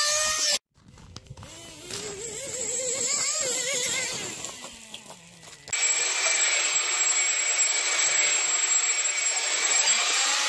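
Nitro RC car engine revving, its pitch wavering up and down; it cuts off abruptly about half a second in. A second stretch of revving rises and falls and fades out, then gives way near the middle to an electric RC car's motor running with a thin high whine over a loud steady hiss.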